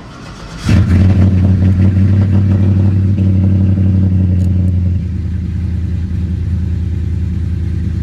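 Cold start of a 6.0-litre LS V8 with a 242 camshaft and headers, heard from inside the cab: it fires up just under a second in and runs at a fast idle, which drops back a little about five seconds in.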